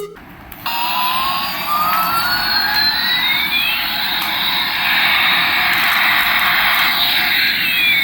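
Toy Airbus A380's electronic jet-engine sound effect: a steady hiss with a pair of whines, one gliding up and one gliding down, crossing every few seconds. It starts a little under a second in.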